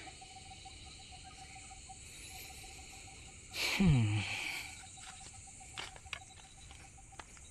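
Steady high-pitched insect chirring, with one short voice-like call about halfway through whose pitch slides down.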